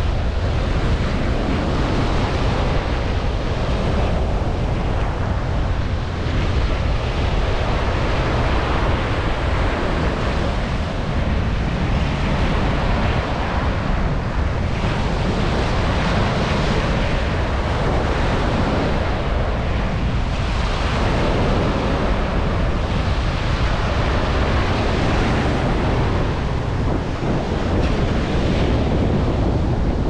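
Ocean waves breaking and washing up the sand at the shoreline, the surf swelling and easing every few seconds, with wind buffeting the microphone.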